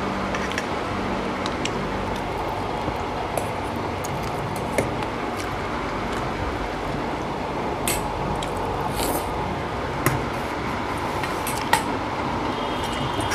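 Eating at the table: a metal spoon clinking a few times against stainless-steel bowls and plates as curry is served, with soft squishing of rice being mixed by hand, over a steady room noise.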